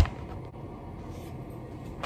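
Quiet room tone, opening with a single sharp click.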